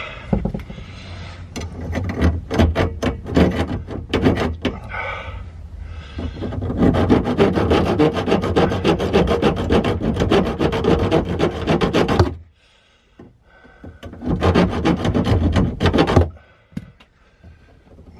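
A hand saw cutting back and forth through plumbing pipe in several stretches of rapid strokes, the longest lasting about five seconds, with short pauses between them.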